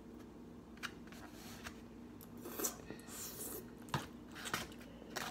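Faint eating sounds: a plastic fork scraping and tapping in a styrofoam takeout container, with quiet chewing and scattered small clicks, the sharpest about four seconds in.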